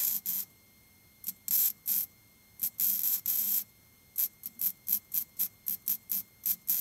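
MIG welder arc crackling in bursts as spot welds are laid on a steel repair panel. There are a few longer bursts in the first half, then quick short blips about four a second toward the end.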